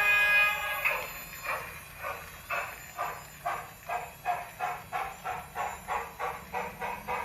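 A model steam locomotive's sound system: a multi-note steam whistle ending about a second in, then steam exhaust chuffs, about two a second at first and quickening as the locomotive gets under way.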